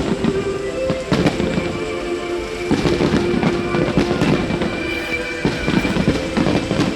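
Fireworks crackling and bursting in a dense, continuous barrage, with music playing alongside.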